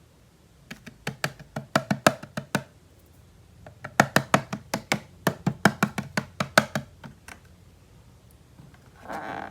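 Quick runs of sharp clicks and taps from hard plastic toy pieces being handled, in two bursts of about a dozen taps each, then a brief rustle near the end.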